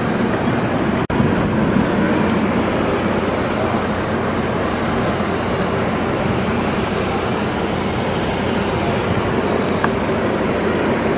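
Steady noise of a GE ES44C4 diesel-electric locomotive's GEVO-12 V12 engine idling, heard close up from the locomotive's walkway and interior. The sound cuts out for an instant about a second in.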